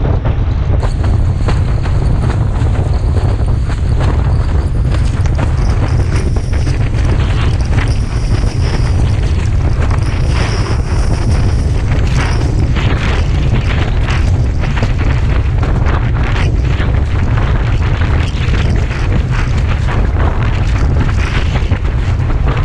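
Strong wind buffeting an action camera's microphone on a windsurf rig sailing fast: a loud, steady low rumble, with frequent short hisses of water and spray as the board cuts through the chop.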